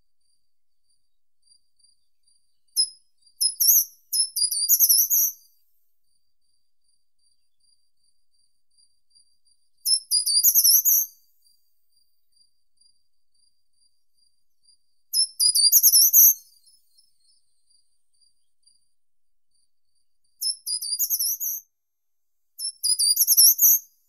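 Short-toed treecreeper singing: five short, high-pitched song phrases of about a second each, spaced several seconds apart, the first preceded by a couple of brief notes.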